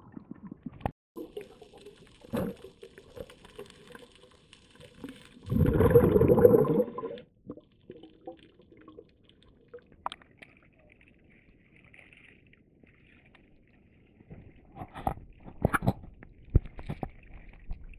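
Water noise picked up by a camera under water, with a loud burst of bubbling about six seconds in, then sharp sloshing and splashing near the end as the camera comes up at the surface.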